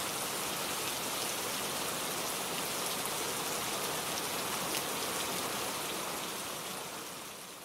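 Steady rain-like hiss with a fine patter, fading out near the end.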